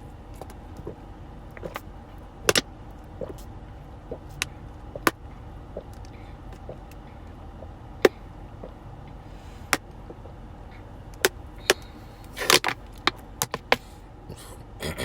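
Large Dasani plastic water bottle crinkling and clicking while someone drinks from it: scattered sharp crackles, bunched into a quick run near the end, over a steady low hum.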